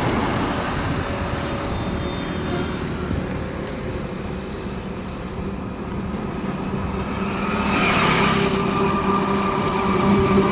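Road traffic on a highway: cars, trucks and motorcycles running past. From about seven seconds in, one vehicle's engine hum grows louder as it comes close.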